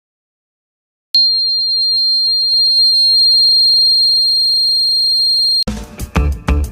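Buzzer of a home-made rain alarm sounding one steady, high-pitched tone that starts about a second in, lasts about four and a half seconds and cuts off abruptly. Background music starts near the end.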